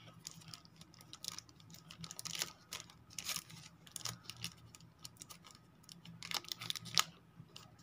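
Clear plastic sleeve around a smartphone battery crinkling faintly as fingers handle it, in irregular light clicks and crackles.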